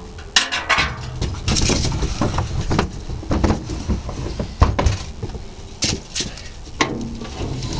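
Lister G1 single-cylinder engine being turned over by hand with its spark plug out: irregular sharp clicks and knocks from the engine's mechanism. This is a check of whether the magneto gives a spark.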